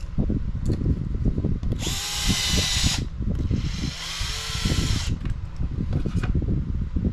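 Cordless electric screwdriver running in two short bursts, about a second and then a second and a half, driving small screws into an RC buggy chassis. A steady low rumble runs underneath.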